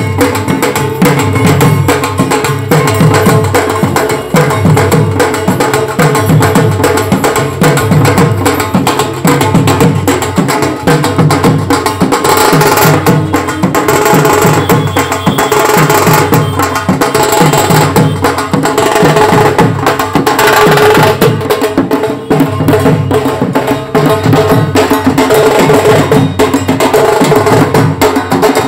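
Bengali wedding band party playing loudly: drums beat a fast, busy rhythm under sustained brass horn melody lines, recorded on a phone mic.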